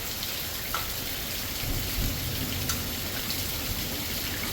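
Heavy rain pouring steadily, with a low rumble of thunder about two seconds in.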